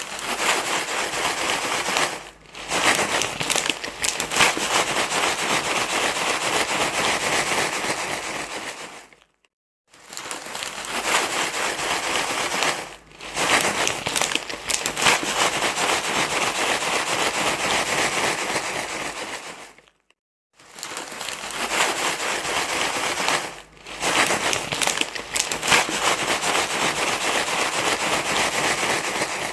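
Crinkly rustling noise, a baby-soothing rustle sound, played as a loop. It comes in stretches of about nine seconds, each broken by a brief dip about two seconds in, with a short silence between stretches, so the same pattern repeats three times.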